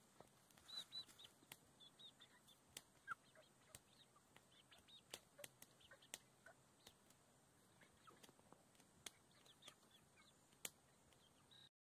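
Faint sounds of hens feeding: soft, brief high chirping calls and scattered sharp clicks of beaks pecking. Everything cuts off suddenly near the end.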